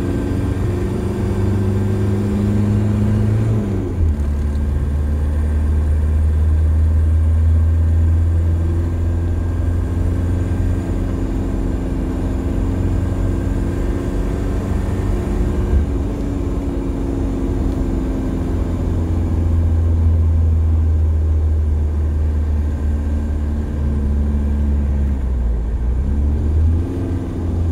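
1993 Toyota Hilux diesel engine heard from inside the cab while driving, a steady low drone. Its pitch drops suddenly about four seconds in as the manual gearbox is shifted, and near the end it dips and climbs again with another gear change.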